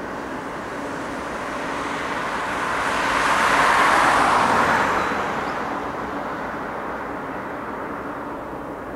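A road vehicle passing close by, its tyre and engine noise swelling to a peak about four seconds in and then fading, over the steady rumble of a freight train moving away.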